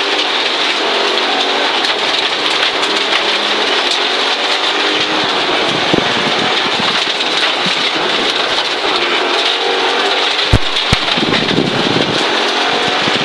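Audi Quattro Group B rally car's turbocharged five-cylinder engine running hard, revs rising and falling as it drives a gravel stage, over a constant hiss and patter of gravel thrown against the car's underside. Two sharp knocks about ten and a half seconds in.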